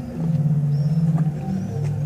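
Zadar Sea Organ: waves pushing air through pipes beneath the stone steps, sounding several low, held, overlapping tones that change pitch every second or so.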